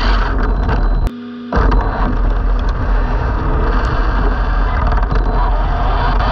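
Onboard camera audio from an Arrma Limitless RC car running on asphalt: loud rushing wind and tyre noise. It drops out briefly about a second in, and the brushless motor's whine begins to rise near the end.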